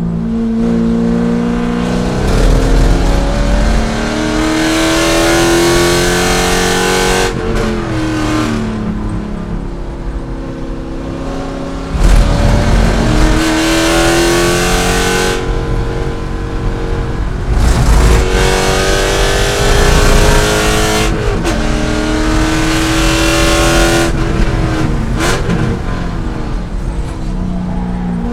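C5 Corvette's V8 engine at full racing effort, revs climbing and dropping repeatedly through gear changes and braking.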